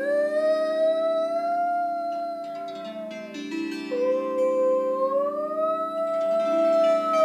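A child's voice singing wordless, held notes that slide gently up and down, two long phrases with a short break in the middle, over a wooden lap harp whose plucked strings ring in low, steady chords.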